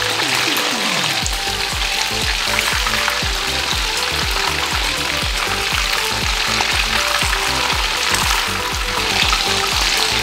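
Battered chicken lollipops deep-frying in hot oil in a kadai: a steady sizzle with crackling, as the pieces are turned in the oil with a wire-mesh spider skimmer.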